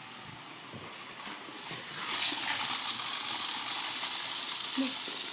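Dogs scuffling and rustling as they play with a toy tarantula: a rough, hissy rustle that grows louder about two seconds in, with small scattered clicks and a brief low pitched sound near the end.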